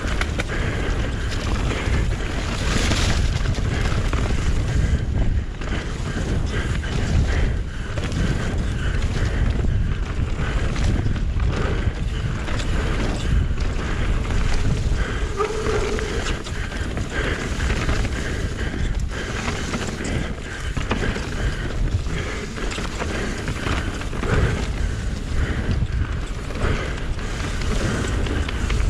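Wind rushing over a GoPro's microphone on a mountain bike descending an enduro trail at speed, with a steady low rumble and frequent knocks and rattles as the bike runs over rough ground.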